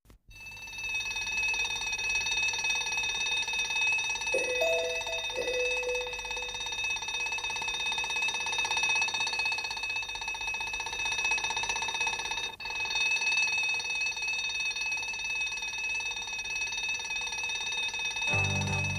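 Twin-bell mechanical alarm clock ringing continuously, a rapid metallic bell ring that drops out for an instant about twelve and a half seconds in. Music starts near the end.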